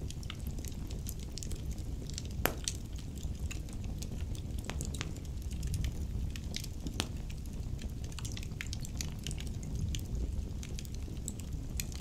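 Wood fire crackling in a brick fireplace: irregular sharp pops and snaps over a low steady rumble, with louder pops about two and a half seconds in and again about seven seconds in.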